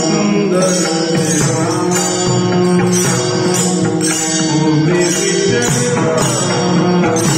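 Music: long held pitched notes over a steady beat of jingling percussion.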